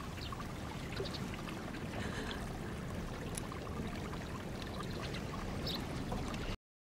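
Steady low background noise with faint scattered ticks, cutting off suddenly near the end.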